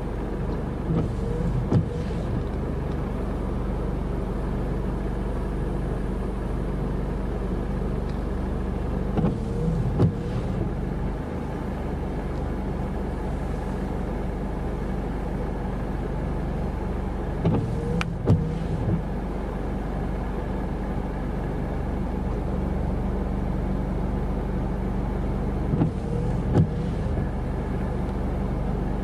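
A car's engine running steadily, heard from inside the vehicle as a low hum. About every eight seconds, four times in all, comes a pair of short knocks with a brief rising squeak.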